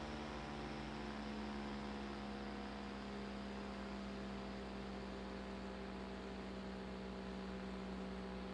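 Antique GE cast iron small-motor-yoke desk fan from about 1911–1913, running on its low speed setting: a steady electric motor hum.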